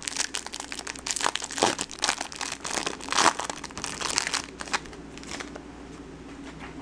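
Baseball card pack wrapper being torn open and crinkled by hand: a run of crackling rustles that stops about five and a half seconds in.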